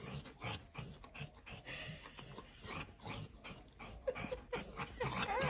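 A dog making short, irregular breathing sounds.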